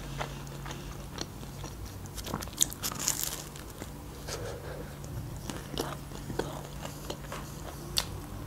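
Biting into and chewing a slice of homemade pizza close to the microphone: short crisp crunches and wet mouth clicks, the loudest crunches a little before and around three seconds in and another near the end. A steady low hum runs underneath.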